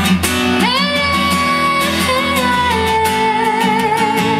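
Pop song, instrumental break: strummed guitar chords under a melody note that slides up about half a second in, is held with vibrato, then steps down.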